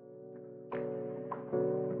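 Soft instrumental background music: a held chord with fresh notes struck twice.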